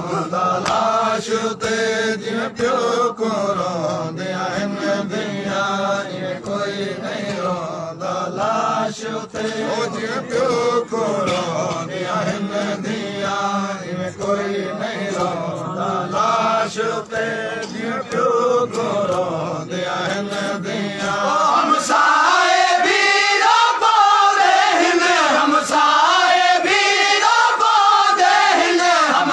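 Group of men chanting a Punjabi/Saraiki noha (Shia lament) refrain in unison, with regular slaps of chest-beating (matam) keeping time. About 22 seconds in, a lead voice on the microphone comes in louder and higher over the group.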